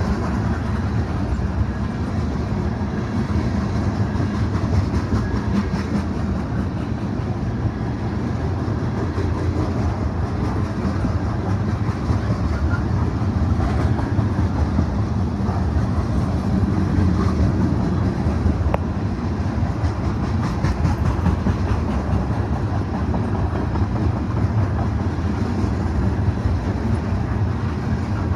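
Long mixed freight train's cars rolling past: a steady, loud rumble of steel wheels on rail, with clickety-clack from the wheels over the rail joints.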